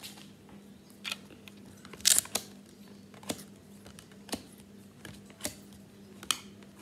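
Trading cards being flipped through one at a time, each card snapping against the stack as it is moved: sharp clicks about once a second, the loudest about two seconds in.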